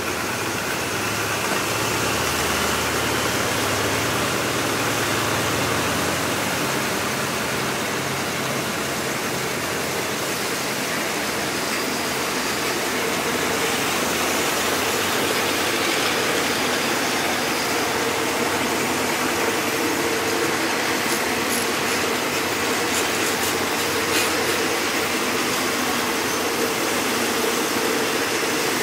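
Diesel train engine running steadily under a constant hiss, with a few faint clicks later on.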